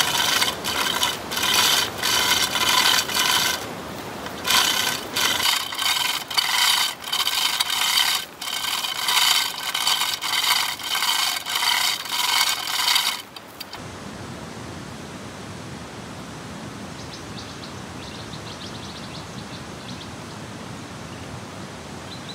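A hand tool rasping on wood in quick back-and-forth strokes. The strokes stop suddenly about 13 seconds in, and a steady, quieter hiss takes over.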